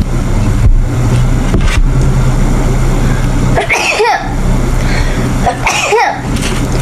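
A young woman sneezing twice, about two seconds apart, allergy sneezes. Each is a voiced 'ah' rising and falling in pitch, ending in a hissing burst, over a steady low hum.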